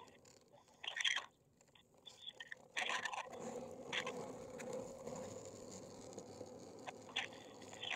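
Muffled scuffs and brief bursts of noise over a speakerphone call line, with a faint steady hum from about three seconds in.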